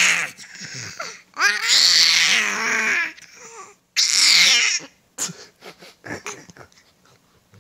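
Baby vocalising: a long, loud, high-pitched scream about a second and a half in and a shorter one about four seconds in, then a few small coos.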